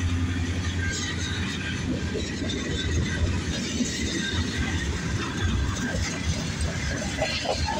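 Freight train making a steady low rumble, with a noisy wash of rail sound over it.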